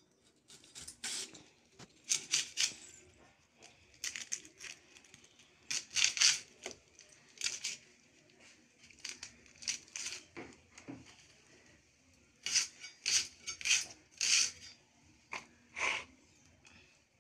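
Red onions peeled by hand: dry onion skins crackling and tearing in irregular short rustles, some louder than others.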